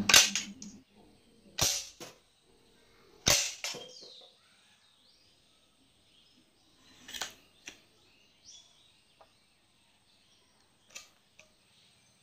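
Homemade bamboo toy gun snapping as it fires: three sharp cracks about a second and a half apart, then softer clicks a few seconds later as the mechanism is drawn back by hand.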